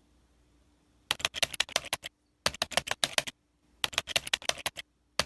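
Computer keyboard typing: three quick runs of keystrokes, about ten clicks a second, with short pauses between, and a fourth run starting at the very end.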